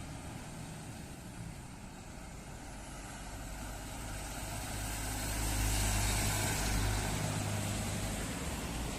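Tour bus diesel engine drawing near and passing, growing louder to a peak about six seconds in, then easing a little, with a hiss of road noise.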